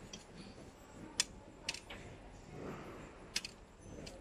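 A few light metallic clicks and taps as a steel ruler and fingers touch the stainless steel folding plates of a mask machine. There are three sharp clicks, the loudest a little over a second in.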